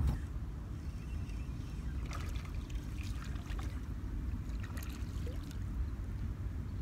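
Steady low rumble of wind on the microphone and water lapping at shoreline rocks, with a few faint clicks as a spinning reel winds in line.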